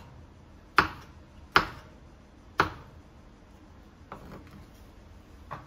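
Kitchen knife chopping a yellow bell pepper on a wooden cutting board: three sharp knocks of the blade on the board about a second apart, then a few fainter ones near the end.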